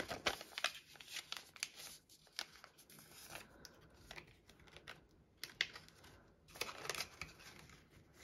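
Paper banknotes and a clear plastic binder envelope crinkling and rustling in short, faint bursts as cash is slid into the envelope and the binder's pages are turned.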